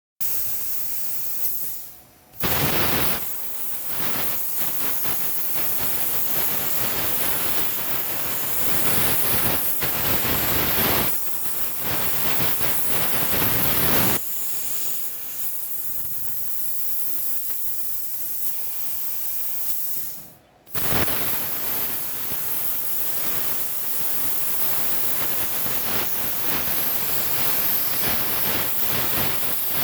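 CNC plasma cutter's torch cutting metal: a steady, loud hiss that breaks off briefly about two seconds in and again about twenty seconds in, starting up sharply each time.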